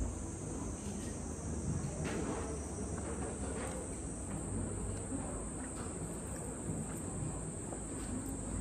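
Steady high-pitched insect drone, with a few faint light clicks.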